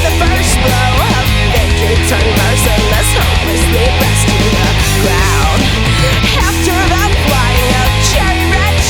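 Loud instrumental rock music: guitar lines over a steady bass and drums, with no vocals.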